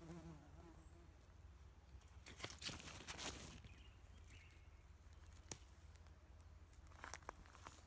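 A bumblebee buzzing briefly at the very start, then faint rustling and handling of chive stems and leaves as a hand grips a chive blossom, with one sharp click about five and a half seconds in.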